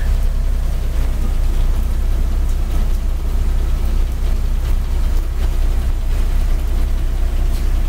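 A city bus idling at the curb, a steady low engine drone, with rain hissing on the wet street.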